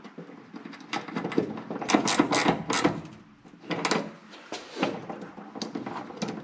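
Hands working automotive wiring: small clicks, rattles and rustles as spade crimp connectors are pushed onto a relay's terminals and an inline fuse holder is plugged into the wiring, with a crimping tool being handled. The handling is busiest about two to three seconds in, with a few sharper clicks later.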